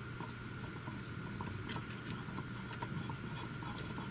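Small magnetic screwdriver turning a tiny screw into the plastic wind-vane fitting of a weather sensor: faint, irregular light ticks and scraping, over a steady low hum.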